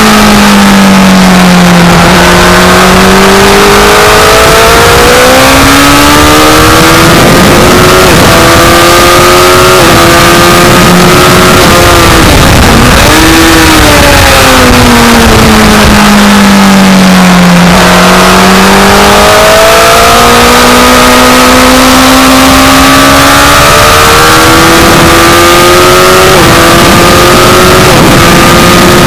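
Honda CBR1000RR SC57's inline-four engine under hard track riding. The revs fall twice under braking and downshifts, and each time climb again in steps as it shifts up through the gears. A steady rush of wind over the microphone runs underneath.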